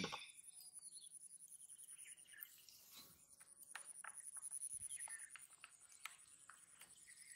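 Near-silent field ambience: a steady, faint high-pitched whine with a few faint bird chirps and scattered small clicks.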